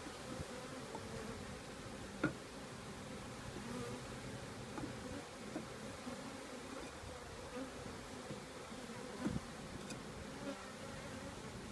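Mass of package honeybees buzzing steadily as they are settled into a new hive around the caged queen. A sharp knock about two seconds in and a softer one near nine seconds.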